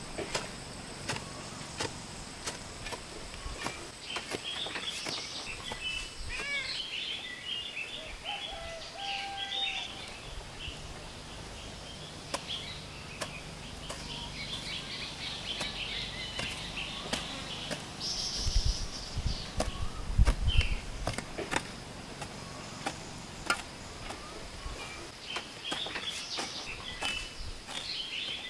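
Small birds chirping in short repeated bursts over a steady high insect whine, with scattered light clicks and a couple of low thumps about two-thirds of the way through.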